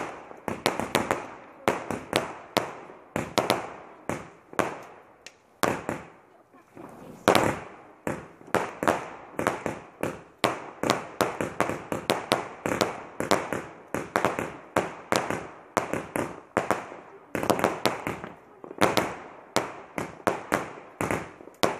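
Aerial fireworks going off in rapid succession, about two or three sharp bangs a second, each trailing off in a short echo. A brief lull comes about a third of the way in, followed by the loudest bang.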